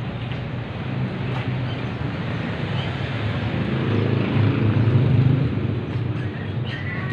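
A motor vehicle's engine running close by, with a low steady hum that swells to its loudest about five seconds in and then eases off, as if driving past.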